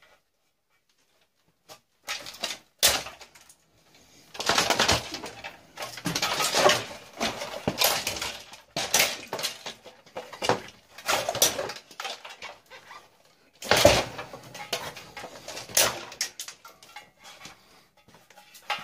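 Irregular clicks, scrapes and clatter of wires and metal parts being pulled and cut out of a tube TV being stripped for scrap, starting after a short silence.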